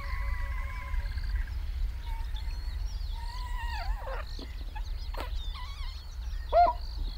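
Squeaky, wavering comic sound effects with sliding pitch, like a balloon being blown up, over a steady low hum. One long falling squeak near the start, another sharply falling one about halfway, and a short rising-and-falling squeak near the end.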